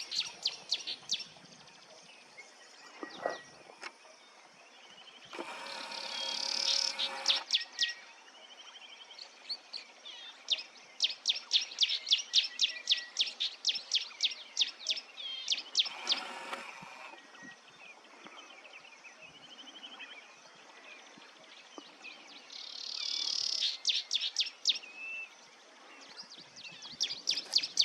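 A cisticola singing, which the birder takes for a trilling cisticola but is not sure: long runs of rapid, sharp high notes, about five a second, coming in several bouts. A few separate buzzes of a second or two sound between the bouts.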